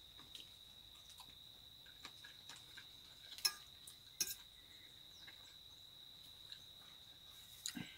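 An insect shrilling steadily in one high thin note, with a few sharp clicks of a metal fork against a ceramic plate during eating, the loudest two a little past halfway and another near the end.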